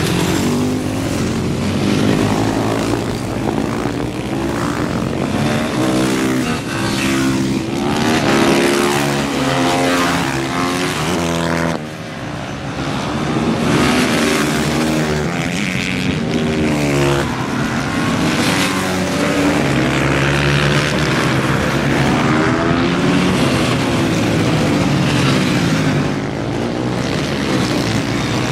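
Supermotard motorcycles racing past through corners, several engines at once revving up and down as the riders change gear and pass by.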